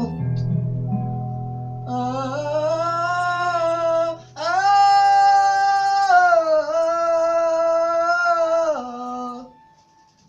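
The end of a song by a small acoustic band: a low guitar note rings and fades while a voice holds two long final notes, wavering slightly. The music stops shortly before the end.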